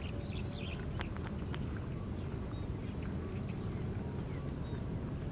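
Outdoor ambience: a steady low rumbling noise, with birds chirping in the first second and a half and a few fainter chirps later.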